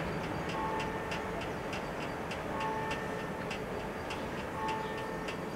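Italian level-crossing warning bells ringing: rapid, regular electronic strikes about three a second, with a short two-note tone repeating about every two seconds.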